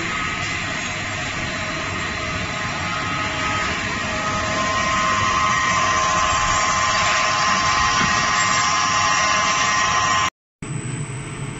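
PLA compounding line running: extruder and strand pelletizer giving a steady machine noise with a steady whine in it. The sound cuts off for a moment near the end and returns quieter, with a different tone.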